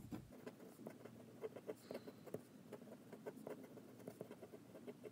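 Jinhao fountain pen's medium nib scratching faintly across paper while writing cursive, a run of light irregular ticks and scrapes.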